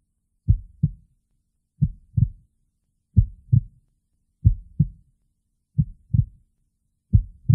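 Heartbeat sound effect: six low double thumps (lub-dub), one pair about every 1.3 seconds, with silence between.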